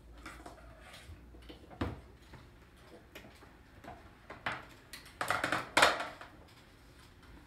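Scissors cutting and things being handled on a table: scattered knocks and clicks, a sharp knock about two seconds in, and a louder noisy stretch lasting about a second around five seconds in.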